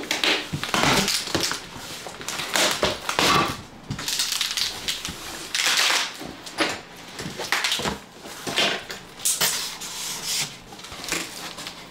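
Large cardboard shipping box being pulled and torn open by hand: irregular crunching, tearing and rustling in repeated bursts.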